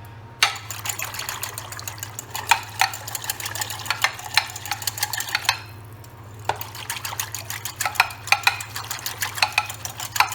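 Wire whisk beating a thin lemon, olive oil and vinegar sauce in a bowl: rapid clicking strokes against the bowl, with a pause of about a second midway.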